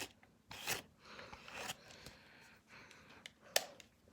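Irregular scraping and rubbing from a barber tool being handled, with a few sharp clicks, the loudest near the end.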